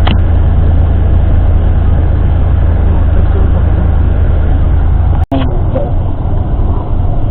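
Steady low rumble of a moving bus heard from inside the cabin: engine and road noise. It cuts out for an instant about five seconds in, then carries on a little more unevenly.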